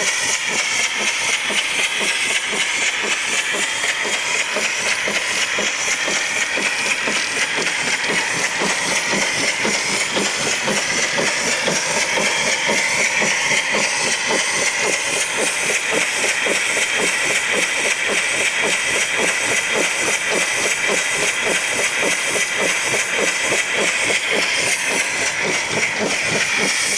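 Steam donkey hoist engine running steadily, its exhaust chuffing in a rapid, even beat over a continuous hiss of escaping steam.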